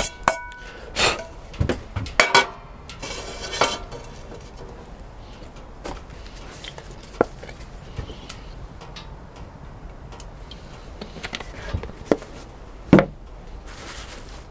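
Metal frying pan being handled and set on a woodstove top: a string of knocks and clanks in the first few seconds, one ringing briefly, then quieter handling with scattered clicks and one sharp knock near the end.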